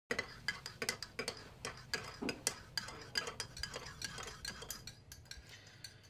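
Irregular light clinks and clicks of cutlery and crockery being handled, several a second, thinning out in the second half.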